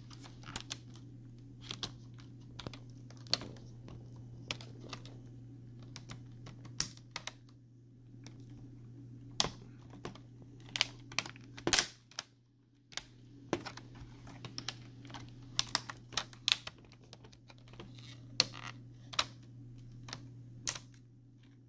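Plastic retaining clips of a laptop's LCD bezel snapping loose as the frame is pried off by hand: irregular sharp clicks and cracks, the loudest about twelve seconds in, over a steady low hum.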